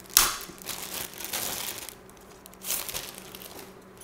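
Clear plastic packaging bag crinkling as hands open it and slide a graphics-card back plate out, in a few bursts of rustling, the loudest just after the start.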